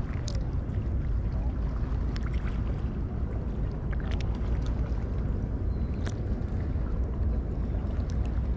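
Steady wind noise on the microphone and water sloshing around a wading angler, with a few faint clicks.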